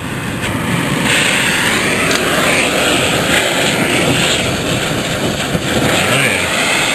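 Oxy-acetylene torch flame blowing with a steady loud rushing hiss that swells up over about the first second after lighting. It is heating rusted Torx bolts on a truck skid plate and crossmember to break them loose.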